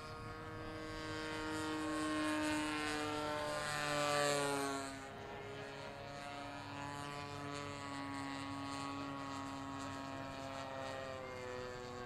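Engine and propeller of a giant-scale radio-control model biplane in flight. The engine note grows louder to a peak about four seconds in and drops in pitch as the plane passes, then runs on more evenly.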